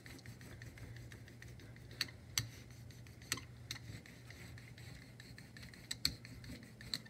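Hand brayer rolling ink over a carved relief printing block: a quiet rolling with scattered light clicks as the roller is pressed down and lifted.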